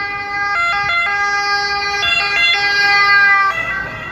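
Ambulance two-tone siren stepping back and forth between a high and a low pitch. It grows louder until about three seconds in, then drops off as the ambulance goes by.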